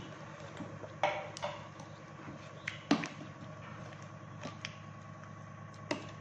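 A steel ladle stirring a simmering egg curry in a stainless steel pot, clinking sharply against the pot several times, loudest about three seconds in. A steady low hum runs underneath.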